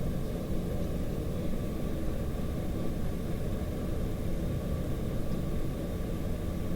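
Boeing 737-800 taxiing after landing: a steady low rumble of its CFM56-7B engines at idle, with faint steady tones above it.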